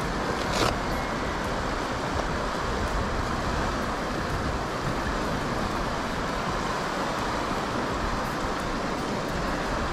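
Fast river water rushing over a shallow riffle: a steady, even rush of flowing water.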